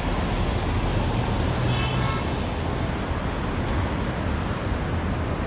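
Steady road traffic: cars running along the busy road below, a continuous rumble and tyre hiss. A short horn toot sounds about two seconds in.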